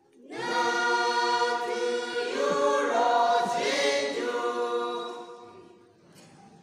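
A mixed group of young men and women singing a folk song unaccompanied. They sing one long held phrase that comes in just after the start and fades away about six seconds in.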